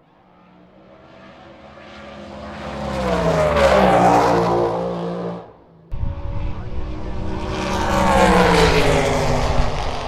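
Drag racing cars passing, two in turn. The first engine grows louder to a peak about four seconds in and drops in pitch as it goes by, then cuts off. A second starts abruptly about six seconds in, with a heavy low rumble, and passes with its pitch falling.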